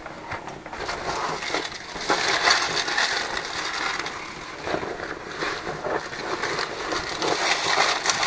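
Shopping bags and spice packets being rummaged through: irregular rustling and crinkling with small handling knocks.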